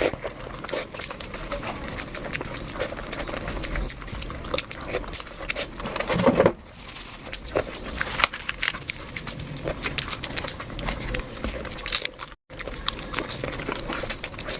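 Close-miked eating sounds: steady chewing and wet lip-smacking, with a louder burst about six seconds in.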